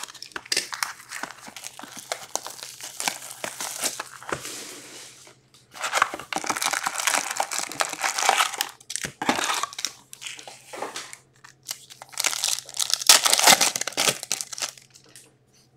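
SP Authentic hockey card hobby box being opened and its foil card packs handled, crinkling in several bursts with short pauses. The loudest stretch, near the end, is a foil pack wrapper being torn open.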